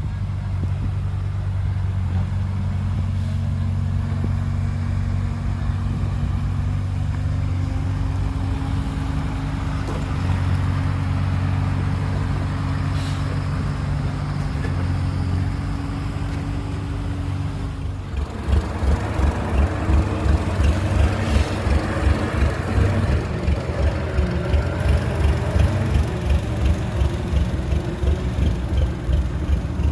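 Heavy diesel engine of earthmoving machinery running steadily. About eighteen seconds in, the sound changes to a throbbing pulse of about two beats a second.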